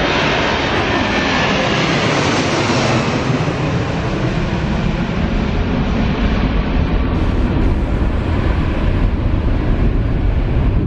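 Twin jet engines of an Airbus A330 at takeoff thrust, climbing away: a loud steady roar whose high hiss fades after about three seconds, leaving a low rumble.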